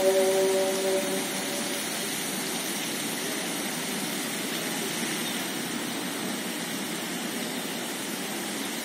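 A sung call to prayer (adhan) holds its last note and fades out within the first two seconds. It leaves a steady, even rushing noise of the open city.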